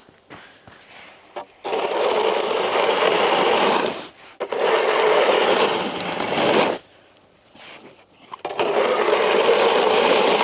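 A snow shovel scraping across pond ice, pushing snow in three long strokes of about two and a half seconds each.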